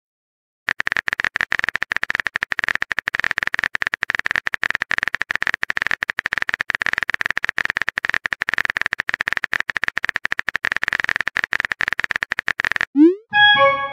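Rapid, continuous keyboard typing clicks from a texting app's typing sound effect. Near the end the clicks stop, and a short rising whoosh and a few chiming tones follow as the message is sent.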